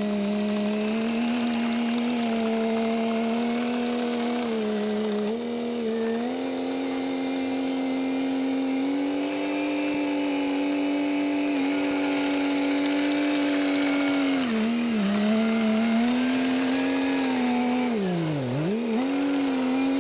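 Caterpillar crawler dozer's diesel engine running steadily at high throttle under load, its pitch dipping briefly about three-quarters of the way through and then dropping sharply and recovering near the end.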